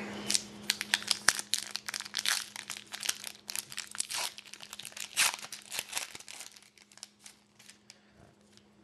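Hockey card pack wrapper being torn open and crinkled by hand, a dense crackling that thins out and stops about seven seconds in.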